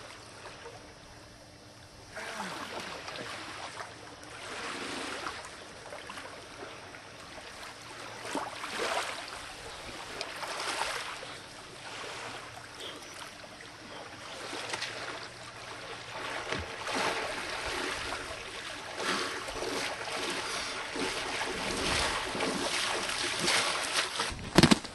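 Lake water splashing around a man's legs as he wades through waist- to knee-deep water, the surges coming faster and louder as he nears the shore. A few loud sharp knocks at the very end.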